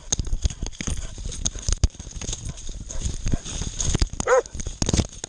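Irregular knocks, thumps and rustles of a hunting dog on the move, heard from a camera strapped to its body, with one short dog bark about four seconds in.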